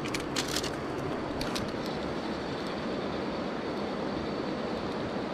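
Steady rushing of a fast-flowing river, with a few faint clicks in the first couple of seconds.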